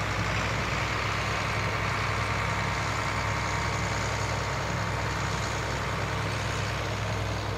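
Combine harvester engine running steadily: an even low drone with a hiss over it.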